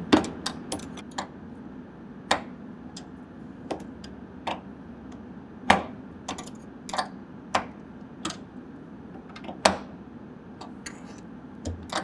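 Steel open-end wrenches clinking against each other and the tonneau cover's spring reel shaft as they are shifted in turn to walk the shaft around and wind up spring tension. The clinks are sharp and irregular, one or two a second, over a faint steady hum.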